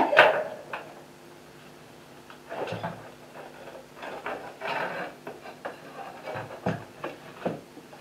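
Steel band saw blade being handled on a wooden workbench: irregular clinks, rattles and knocks in several short clusters as the sharpened blade is taken off the sharpening jig and laid out.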